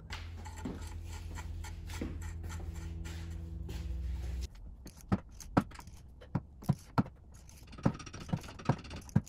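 A steady low hum for the first four and a half seconds, cutting off suddenly; then a ratchet wrench clicking, two or three sharp clicks a second, as it turns the castle nut on the tie rod end.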